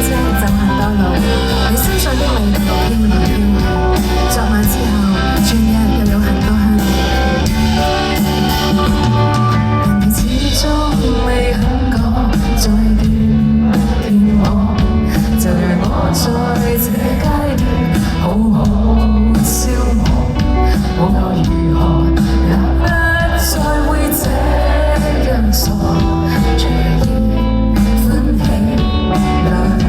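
Live band playing a song, with a sung vocal over the band.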